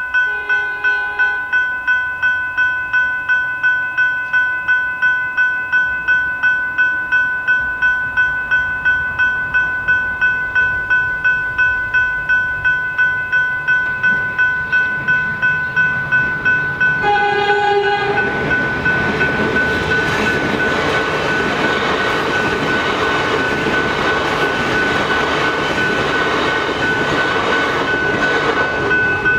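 Level crossing electronic bells ringing steadily at about two strikes a second, signalling an approaching train. A train horn sounds briefly near the start and again a bit over halfway through. Then a Metro electric multiple unit (High Capacity Metro Train) passes through the crossing, its rushing noise rising above the bells until near the end.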